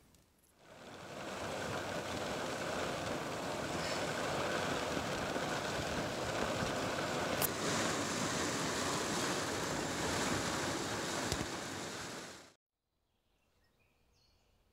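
Heavy rain falling on a car's roof and windows, heard from inside the car: a steady hiss of rain that cuts off suddenly near the end.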